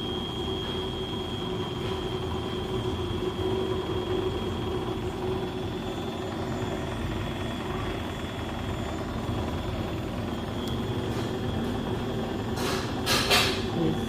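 Beko WS832425s washing machine on its final spin: a steady drum rumble with a thin high whine over it. A few sharp knocks come near the end.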